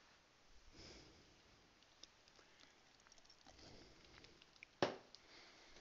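Near silence: room tone with a few faint soft rustles and small ticks, and one sharp click about five seconds in.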